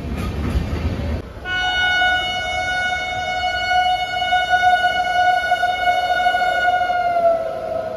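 Train rumbling, which breaks off about a second in. A train horn then sounds one long, steady blast of about six seconds, dipping slightly in pitch near the end.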